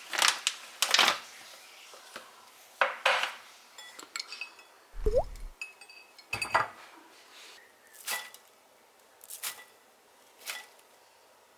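Kitchenware handled: a series of sharp clinks and knocks of dishes and utensils, some ringing briefly, with a couple of duller thumps among them.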